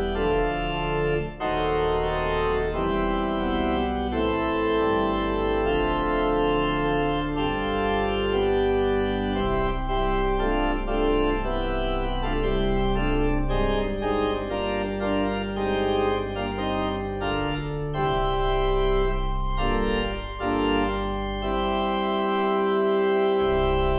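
Organ playing slow, sustained chords over a held low bass line, settling into a long held chord near the end.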